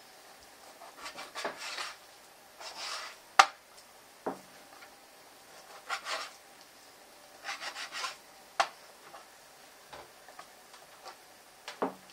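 Kitchen knife sawing through raw chicken on a plastic cutting board: groups of short rasping strokes broken by sharp knocks. The loudest knock comes about three and a half seconds in.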